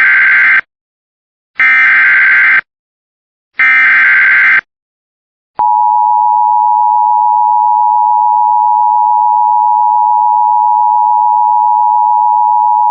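Emergency Alert System SAME data header: three screeching digital bursts of about a second each, a second apart, the first already under way. About five and a half seconds in, a steady EAS attention tone begins and holds, signalling a severe thunderstorm warning.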